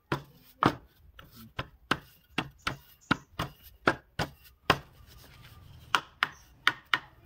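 Sharp, irregular knocks and taps on a wooden workpiece mounted in a wood lathe's chuck, about two or three a second, as it is handled and set. A low steady hum comes in briefly about five seconds in.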